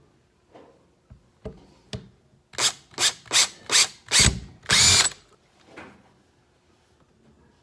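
Power drill with a 3/16-inch bit running in short bursts, six quick trigger pulls about two to three a second, as it bores pilot holes into a plastic kayak hull, after a few light clicks.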